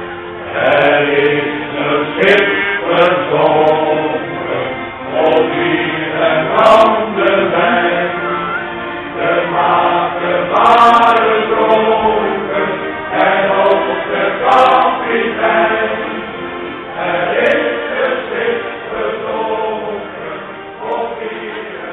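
Men's shanty choir singing a sea shanty in Dutch.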